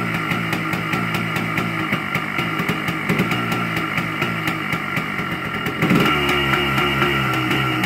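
Yamaha Blaster 200's single-cylinder two-stroke engine running shortly after a cold start on choke, growing louder about six seconds in.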